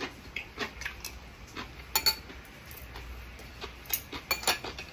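Metal spoon and chopsticks clinking and tapping against a ceramic rice bowl and side-dish plates during a meal. The taps come irregularly, with the sharpest clinks about two seconds in and a quick cluster near the end.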